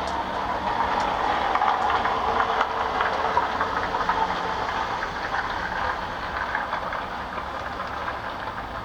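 A passing vehicle: a steady noise that swells about two seconds in and slowly fades.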